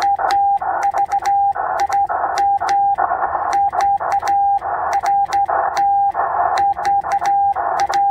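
Morse code from a Yaesu FT-891 transceiver: a steady beep keyed on and off in dots and dashes, with hissing band noise filling the gaps between elements and sharp clicks at the switchovers.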